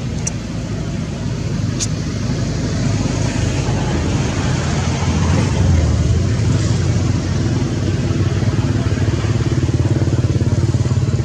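Small motorbike engine running, its fast low pulse growing louder over the first half and then holding steady. Two short sharp ticks come in the first two seconds.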